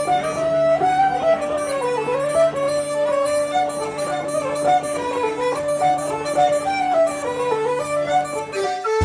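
Bagpipes playing a tune: a moving chanter melody over steady drones, which cut off suddenly near the end.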